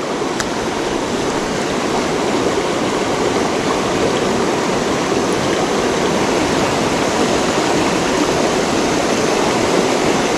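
Shallow rocky river running over stones: a steady rushing wash of water.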